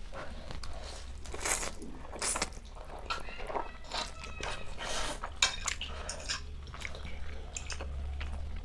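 Close-up mukbang eating: two people slurping and chewing forkfuls of spicy instant noodles, in short irregular bursts.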